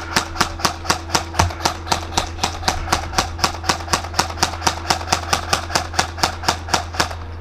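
An airsoft gun firing a steady string of single shots, about four a second, stopping shortly before the end.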